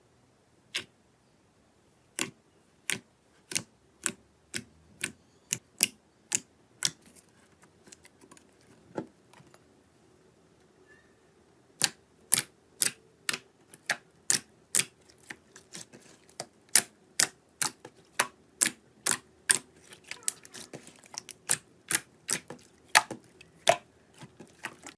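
Slime being pressed and poked, giving a series of sharp clicking pops, about two a second. The pops stop for a few seconds about a third of the way in, then come back quicker, about three a second.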